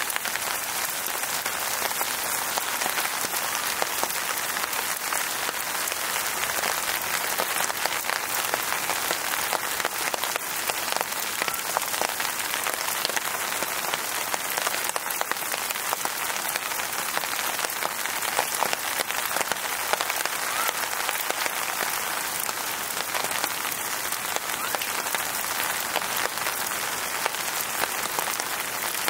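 Steady rain falling, a dense even patter of drops that holds at the same level throughout.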